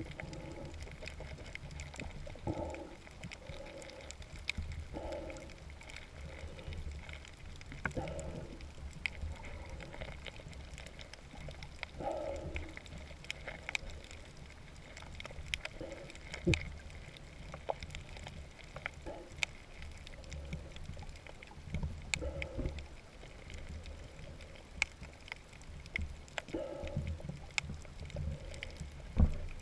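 Underwater sound over a reef, heard through a submerged camera: a steady low rumble of water, with scattered faint clicks and a soft muffled swell every few seconds.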